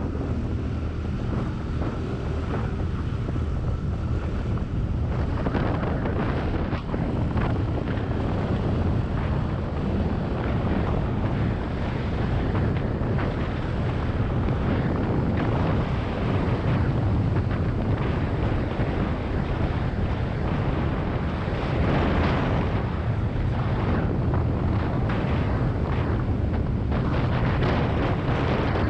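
Wind buffeting the microphone of a moving scooter, with a steady low rumble of engine and tyres beneath.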